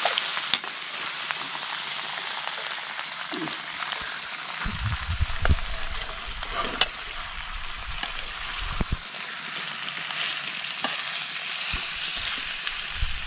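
Frog meat sizzling in a hot frying pan, a steady hiss, while a metal spoon stirs it and clicks and scrapes against the pan now and then.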